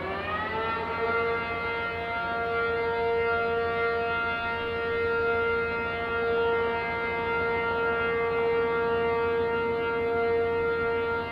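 Outdoor warning siren finishing its wind-up, its pitch rising through the first second, then holding one steady, loud tone.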